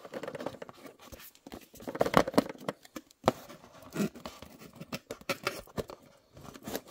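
Cardboard diorama pieces being handled and folded: irregular rustling and scraping with sharp little clicks and taps, the loudest about two seconds in and a crisp click a little after three seconds.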